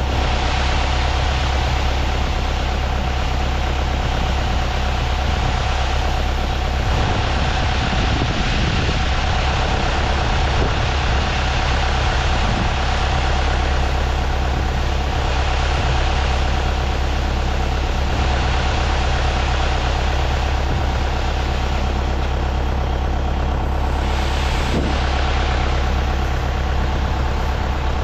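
A vehicle engine running steadily, with a constant low hum and a steady whine above it.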